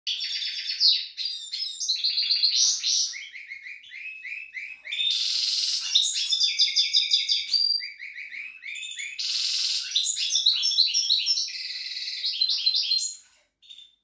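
Caged finch song: a long, high-pitched run of rapid repeated trills and buzzy phrases, broken by short pauses, stopping shortly before the end.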